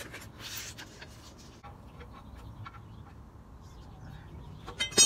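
Scattered light clicks and scrapes of a threaded steel rod and bicycle fork parts being handled on pavement, with a louder burst of clattering clicks near the end.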